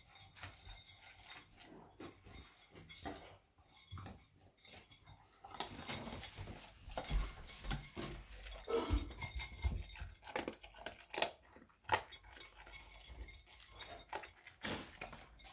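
Labrador puppy eating from a bowl: irregular clinks and clatters of food and bowl as it gulps and chews. The clicks come faster and louder in the second half.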